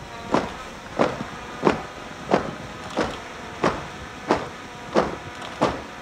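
A steady marching beat: one sharp hit about every two-thirds of a second, in time with a troop marching in parade step.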